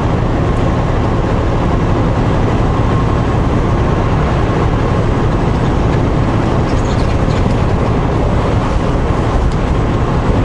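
Semi-truck driving, with steady engine and road noise heard inside the cab.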